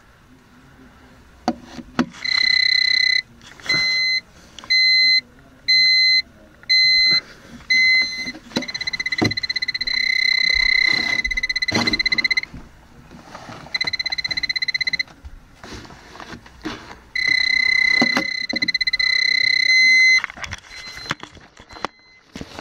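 Moisture meter's electronic alarm beeper sounding a steady high tone: first held about a second, then five short beeps about one a second, then longer unbroken tones of one to four seconds, with handling knocks and rustling in between. Such a meter beeps when its reading is above the alarm set point, and the reading here is a high 54%.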